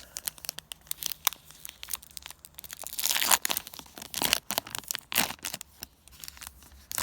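A Yu-Gi-Oh! booster pack's foil wrapper being torn open and crinkled in the hands: scattered crackles with a few louder rips, the loudest about three seconds in.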